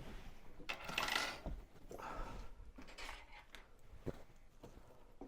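Small parts and tools being handled while fitting a part with screws: a scraping rustle about a second in, another shortly after, then a few light clicks.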